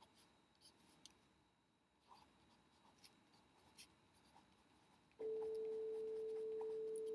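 Faint scratching and light ticking, like drawing on paper, then a steady electronic beep at a single pitch starts about five seconds in and holds.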